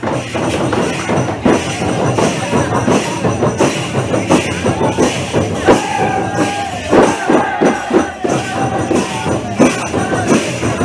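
Nepali chudka folk music played live: a madal hand drum beaten in a quick, steady rhythm of strokes. From about six seconds in, a high voice holds drawn-out notes over the drumming.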